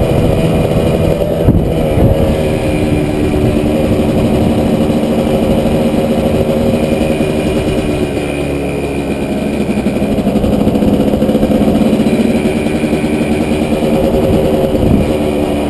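Kawasaki KDX220 two-stroke single-cylinder dirt bike engine running at a steady riding pace on a gravel road. The engine note dips about eight seconds in and climbs again. There is a brief knock about a second and a half in.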